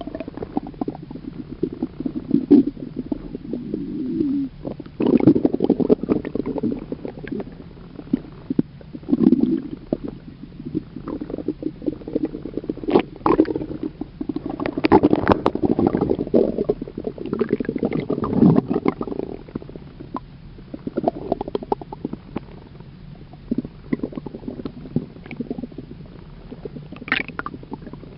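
Stomach rumbling and gurgling in irregular bursts, with quieter gaps between them and occasional sharp pops.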